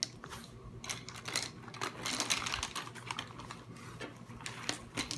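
Pens and pencils clicking and tapping against each other and the tabletop as they are handled and slid into a zippered fabric pencil pouch, in a string of irregular light clicks.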